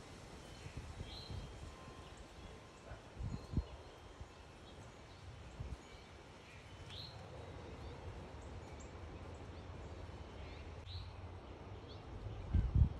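Backyard birds giving short, separate chirps every few seconds over a low steady rumble. A couple of dull low thumps come through, the loudest near the end.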